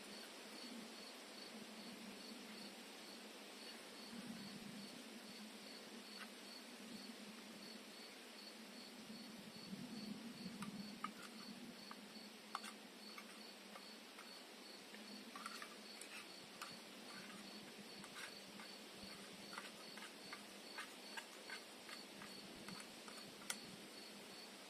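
A cricket chirping steadily, about three chirps a second, with scattered sharp clicks in the second half.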